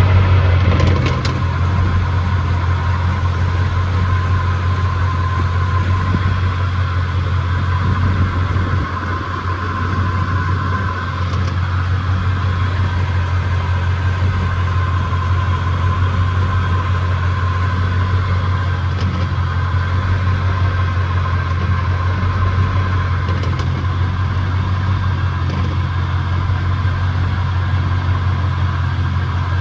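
Chevrolet truck running steadily: a low drone with a steady high whine on top, the noise suspected of coming from a bad 10-bolt rear differential.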